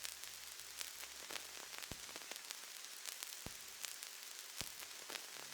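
Faint static-like hiss with scattered crackling clicks.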